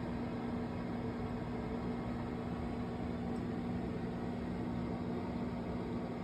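Convection microwave oven running in roast mode: a steady hum with an even fan whoosh.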